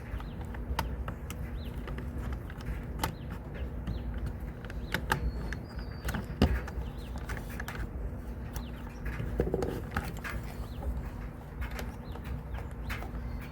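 Scattered clicks and knocks of a sight being clamped and fitted onto an airsoft M4 rifle's rail, the sharpest knock about six and a half seconds in. Birds chirp faintly now and then.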